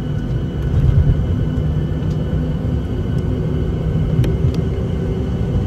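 Jet airliner cabin noise while taxiing: a steady low rumble of the engines and rolling gear, with a steady hum over it and a few faint clicks.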